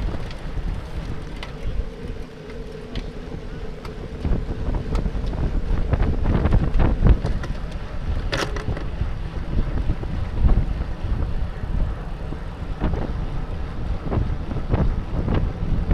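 Wind buffeting the microphone of a bike-mounted camera on a road bike riding at speed in a pack, with a steady low rumble and scattered sharp clicks and rattles.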